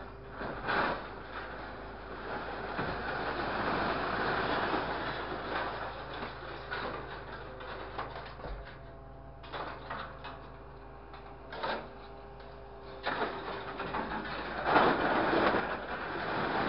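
Scrap-handling grapple machine working its hydraulic orange-peel grab: the engine and hydraulic pump run with a steady whine that swells under load as the grab lifts and swings a load of scrap metal, twice. Scrap metal clanks and rattles throughout, loudest about three seconds before the end.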